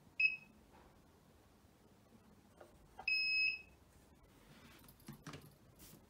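Electronic beeper of a Xiaomi M365 electric scooter: a short high beep, then a longer beep of the same pitch about three seconds later, followed by faint handling clicks and rustles.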